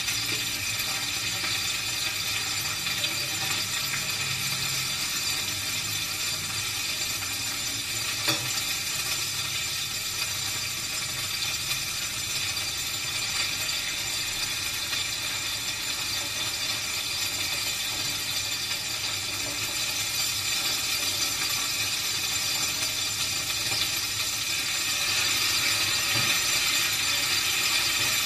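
Food sizzling steadily in hot oil in a frying pan on a gas burner, growing a little louder near the end, with a single sharp click about eight seconds in.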